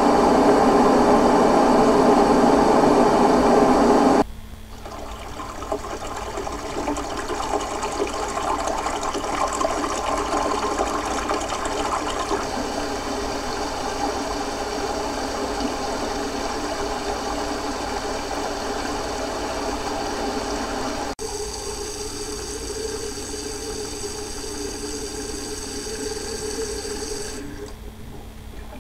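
A series of recorded water sound effects played one after another: a loud rushing water sound that cuts off about four seconds in, then a softer, grainier water noise, which switches abruptly about twenty-one seconds in to a hissier water sound that fades near the end.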